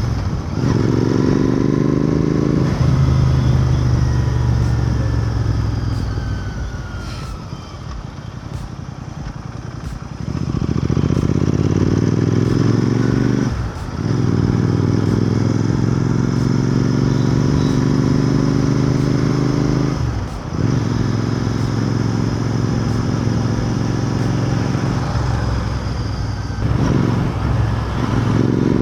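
Royal Enfield Continental GT 650's 648 cc parallel-twin engine and exhaust under way: the pitch climbs as it accelerates, dips briefly at each gear change, and goes quieter for several seconds while off the throttle before pulling again.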